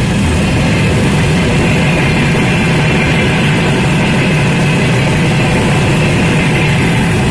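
Freight wagons of a long goods train rolling past close by: a steady, loud noise of steel wheels running over the rails, with no break or change.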